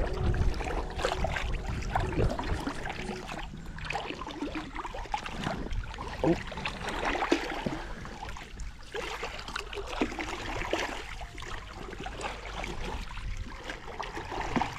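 Water splashing and trickling around an inflatable Itiwit 3 kayak being paddled, in irregular splashes, over a steady low rumble.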